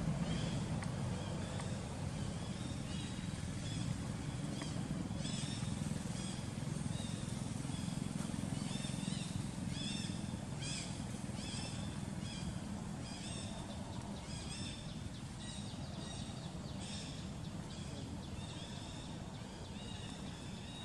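Outdoor ambience: short, high chirping calls repeat irregularly over a steady low rumble.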